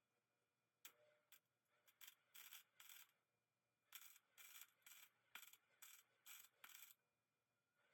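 Faint rasping strokes of hand abrasive work, such as filing or sanding, repeated about two a second in runs with short pauses.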